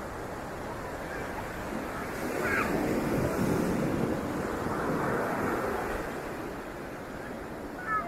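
Ocean surf breaking and washing up the beach, a steady rushing wash that swells louder from about two seconds in and eases off after about six seconds. A brief high cry cuts through about two and a half seconds in.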